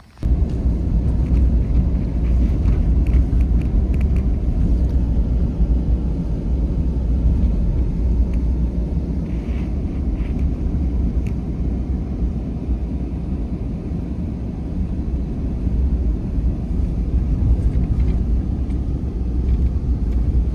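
A car driving, a steady low rumble of engine and road noise with no sharp events.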